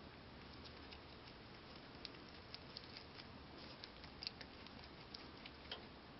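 Holland lop rabbit chewing a fresh shiso (perilla) leaf: faint, irregular crisp clicks of its teeth from about two seconds in to near the end.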